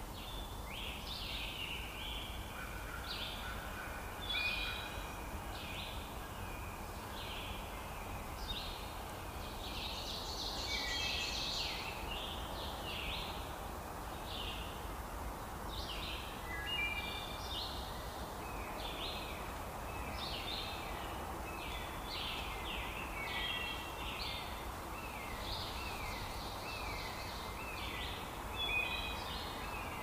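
Woodland birds singing: a busy chorus of short, quick chirps and whistled notes repeating throughout, over a steady background hiss.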